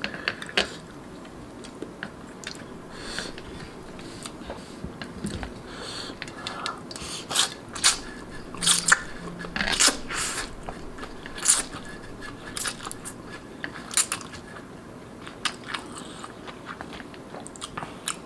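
Close-miked mouth sounds of eating noodles: slurping strands and chewing, with scattered sharp wet smacks and clicks, the loudest bunched about eight to eleven seconds in.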